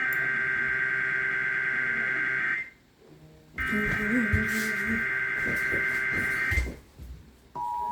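Emergency Alert System SAME header data bursts from a weather radio broadcast: two harsh digital buzzing bursts about three seconds each, a second apart, which encode the coming alert. Near the end a steady two-tone attention signal begins.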